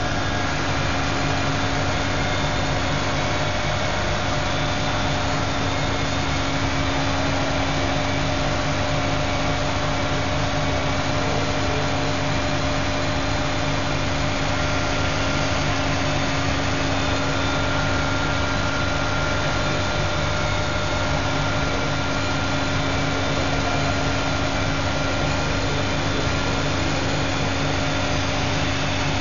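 Electronic stone-cutting bridge saw running steadily, an unbroken machine drone with a few steady tones over dense noise.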